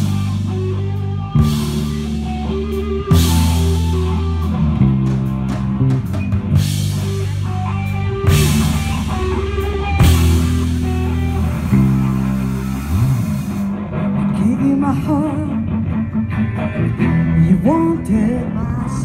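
Live rock band playing an instrumental intro: electric guitars and bass guitar on held power chords, with the drum kit crashing cymbals on the big chord hits. From about 14 s in the cymbals drop out and a lead guitar plays a line with rising note bends.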